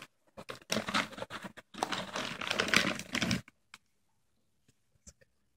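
Crackly rustling and crinkling made of many quick small clicks, in two stretches over about three seconds, then only a few faint scattered clicks.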